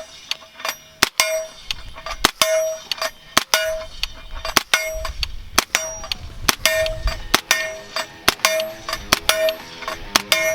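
A steady string of suppressed 9mm shots, 158-grain rounds through an AAC Ti-Rant suppressor, about two to three a second. Most are followed by the brief ringing clang of a steel target being hit.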